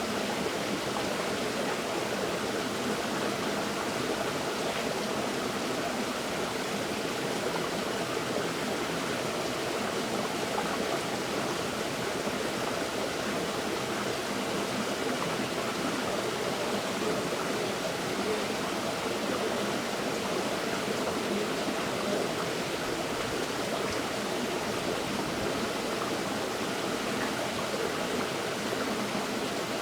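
River water flowing steadily over rocks, an even rushing babble with no breaks.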